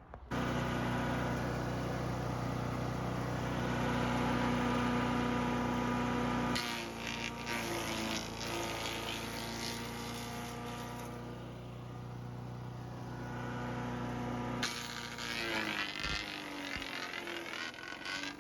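Champion 224cc four-stroke wood chipper engine running steadily while branches are fed through and chipped, with bursts of crackling and snapping wood in the middle and near the end. The sound changes abruptly twice.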